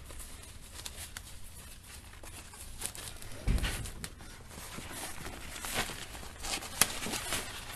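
Softbox fabric being handled and pressed down while its outer diffuser is fastened with Velcro: light rustling with scattered small clicks, a dull thump about three and a half seconds in and a sharp click near the end.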